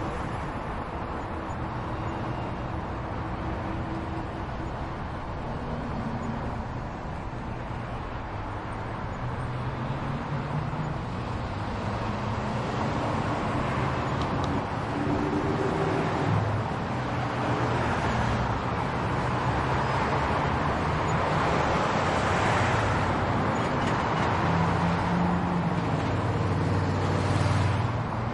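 Continuous road traffic, cars driving past with a low engine hum under a steady wash of road noise. It grows louder from about halfway through as vehicles pass closer.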